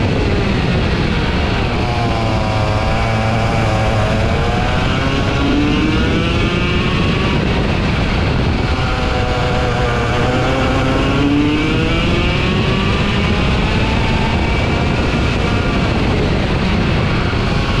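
Two-stroke racing kart engine heard from on board, its pitch dropping as the kart slows for corners and climbing again on the exits, twice over.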